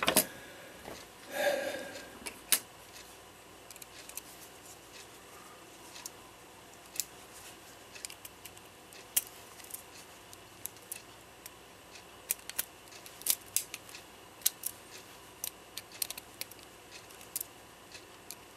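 Irregular sharp metal clicks and taps of a nut driver working the small nuts on a brass Regula cuckoo clock movement, with the loudest clicks just after the start and about 2.5 s in.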